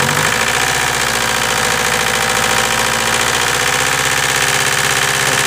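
VW TDI turbodiesel engine revved up and held at about 2,000 rpm, its pitch rising slightly in the first half second and then running steadily. The owner says the engine has a stuck piston ring and low compression in one cylinder.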